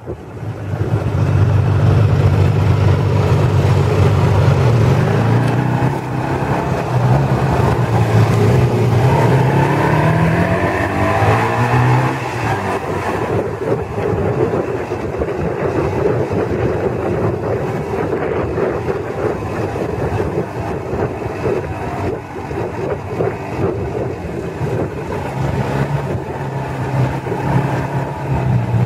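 Motorcycle engine running on the move, with steady wind and road rush. The engine note climbs between about 8 and 12 seconds in as it accelerates, then settles.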